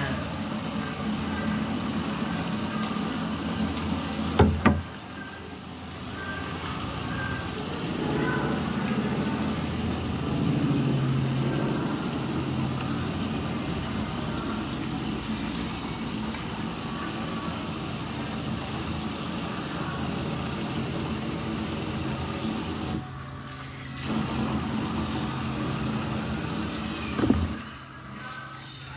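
Water running and splashing in a kitchen sink while fish are washed and cleaned by hand, with a sharp knock about four seconds in and another near the end.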